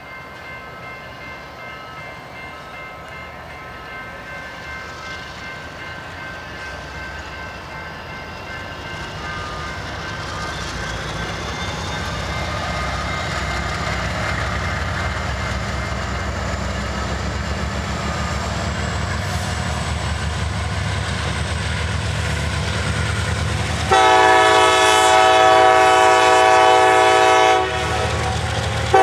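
Norfolk Southern diesel freight train rumbling, growing steadily louder as it approaches and passes. About four-fifths of the way in, a locomotive air horn sounds one long loud blast of a few seconds, then starts again at the very end.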